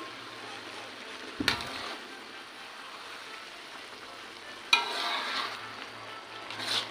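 Squid sizzling and simmering in its thick, dark sauce in a metal wok while a spatula stirs it, with the spatula knocking against the pan about a second and a half in and again near five seconds, the second knock ringing briefly.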